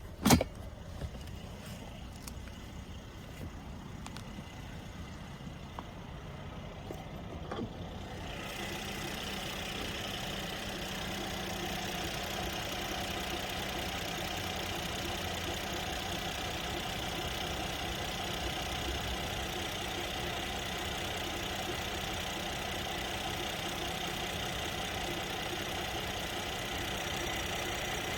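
Car engine idling steadily, with a sharp click at the start. About eight seconds in it becomes louder and brighter.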